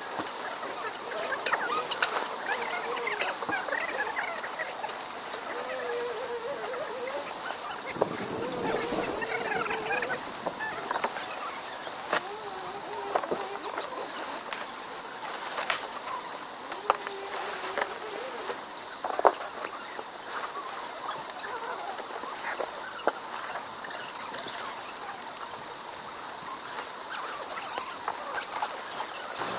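A large Logos Decagon tent being struck: its fabric rustles and slides as it collapses and is gathered up, with occasional sharp clicks and knocks from the poles. Faint wavering calls come and go, mostly in the first ten seconds, over a steady high hiss.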